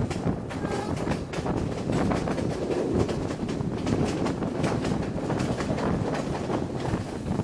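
Passenger train running along the track, heard from an open carriage window, with wind blowing on the microphone.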